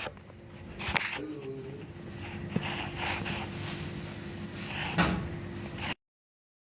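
Kitchen handling noises: a sharp knock about a second in, a light tap midway and a louder knock near the end, like a cabinet door or drawer, over a faint steady hum. The sound then cuts out to silence.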